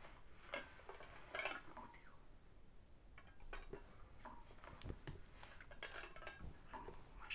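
Faint scattered clicks and light clinks of small hard objects, with two dull low thumps about five and six and a half seconds in.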